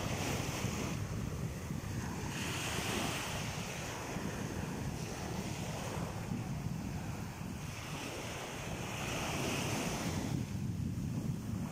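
Small sea waves washing in and breaking over a rocky shoreline in repeated swells, with wind rumbling on the microphone.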